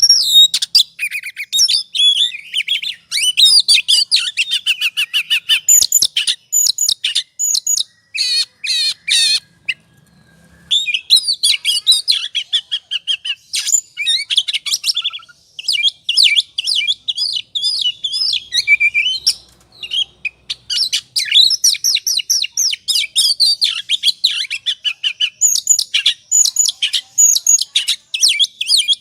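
Oriental magpie-robin (kacer) singing a fast, loud, nearly unbroken stream of varied high chirps, trills and whistles: the excited, combative 'ngobra' song. It stops briefly about ten seconds in, then starts again.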